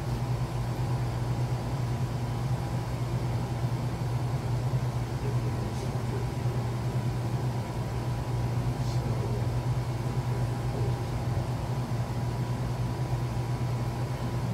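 Portable air conditioner running with a steady low hum, with a couple of faint clicks about six and nine seconds in.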